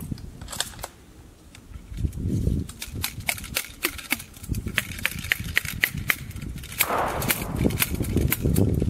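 Ramrod working in the barrel of a muzzle-loading flintlock rifle during reloading: a quick run of sharp metallic clicks and knocks, some with a brief ring, then a short scraping rasp near the end.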